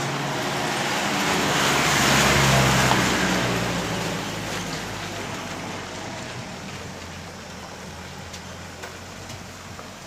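A road vehicle passing close by: engine and tyre noise build to their loudest about two to three seconds in, then fade slowly.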